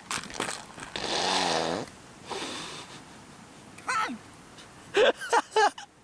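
Men's wordless vocal sounds: a drawn-out, breathy cry with falling pitch about a second in, then several short, loud exclamations near the end.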